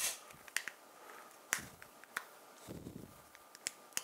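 Plastic key fob shell being snapped shut over a small transmitter board: several sharp plastic clicks, the loudest right at the start, with a brief low rustle of handling about three seconds in.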